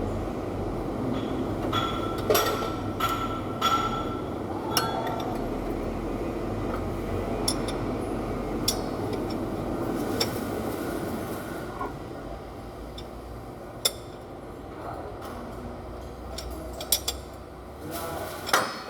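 Metal tools and engine parts clinking and tapping, several with a short ringing note, over a steady low background rumble.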